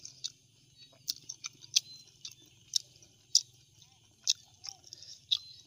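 A person eating boiled armored suckermouth catfish close to the microphone: about nine sharp, irregular clicks and crunches as the hard-skinned fish is chewed and picked apart, over a steady high hiss.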